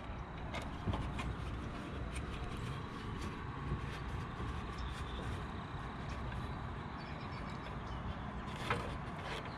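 Steady low outdoor background rumble with faint scattered small clicks and rustles of leather-gloved hands handling and twisting electrical wires.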